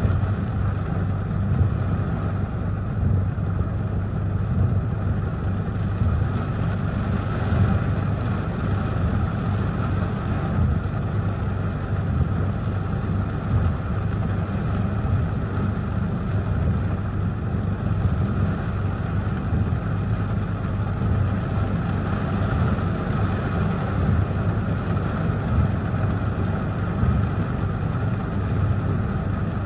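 Heavy rain from a tropical depression beating on a car, with gusting wind, heard from inside the car: a loud, steady wash of noise over a strong low rumble.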